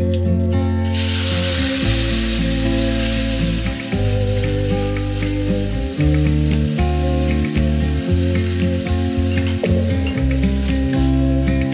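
Hot oil in a small pan sizzling hard as a red tomato-and-spice liquid goes in, about a second in, then settling to a gentler frying sizzle. A wooden spoon stirs through the pan, adding small clicks.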